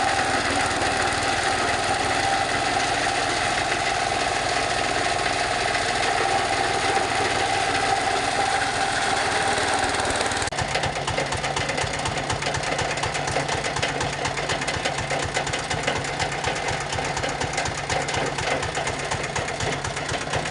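Fabric shredding machine running steadily as it chews through thin cloth. About halfway through, the sound changes abruptly to a lower hum with a fast, dense rattle.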